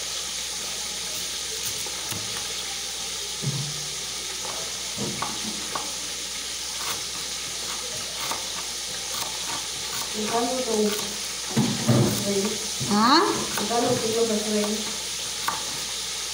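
A kitchen knife slicing onions, with scattered light taps on the chopping board, over a steady hiss. Voices come in during the last few seconds.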